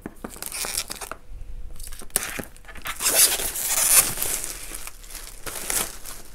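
Clear plastic shrink-wrap being peeled and torn off a cardboard box, crinkling and crackling, loudest about three to four seconds in.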